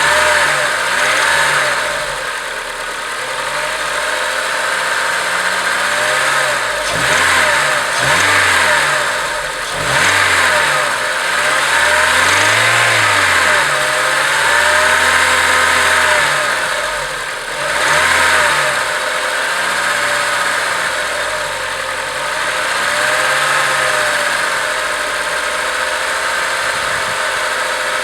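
Acura RSX Type-S 2.0-litre four-cylinder engine being blipped repeatedly, the revs rising and falling again and again, then settling to a steadier idle near the end.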